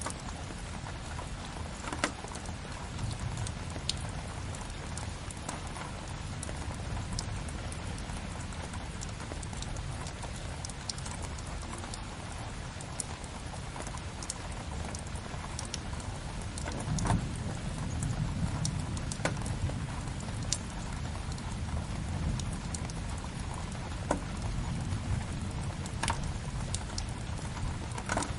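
Steady rain hiss layered with a wood fire crackling, scattered sharp pops throughout and a few louder ones, over a low, even rumble.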